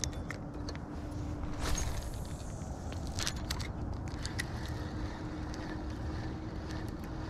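Wind rumble and handling noise on a body-worn camera while an angler works a fishing reel. There is a brief falling swish about two seconds in and a few clicks, and the reel handle is being cranked to retrieve the line.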